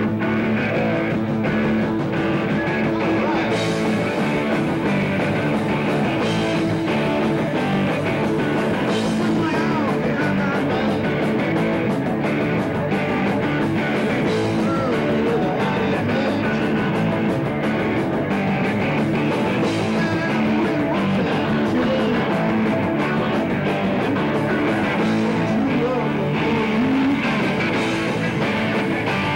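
Rock band playing live: electric guitars, bass guitar and drums, with a man singing.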